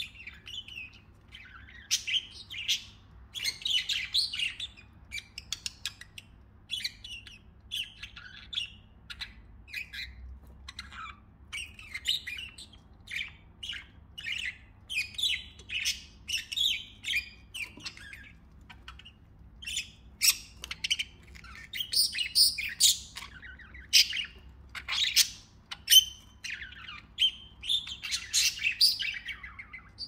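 Several budgerigars chirping and chattering in quick, overlapping calls, growing louder and busier in the last third.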